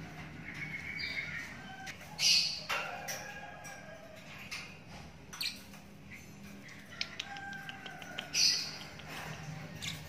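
Young lovebird chick, about 24 days old, giving short sharp chirps and squawks at intervals, loudest about two seconds in and again near the end, with softer chirps between and a brief run of faint ticks about seven seconds in.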